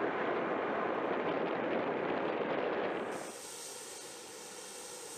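Steady rushing noise like outdoor flight-line ambience. About three seconds in it cuts to a quieter steady hiss with a faint high whine.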